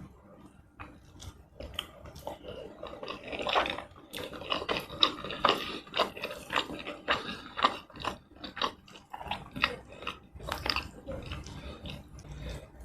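Close-miked eating of tomato rice and chicken in red chili sauce: wet chewing with quick mouth clicks. It is quieter for the first few seconds, then the clicks come thick and fast until near the end.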